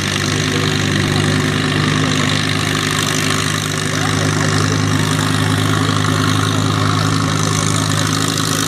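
Farm tractor engine running at a steady speed, with no rise or fall in revs.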